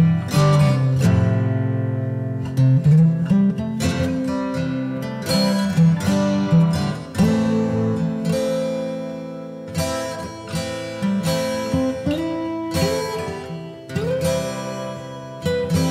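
Background music: plucked acoustic guitar playing a steady instrumental melody.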